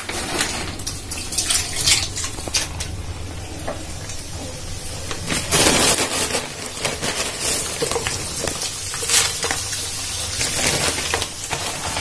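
Corn poha (corn flakes) sizzling as they deep-fry in hot oil in a steel kadhai, a steady bubbling hiss with sharper crackles now and then.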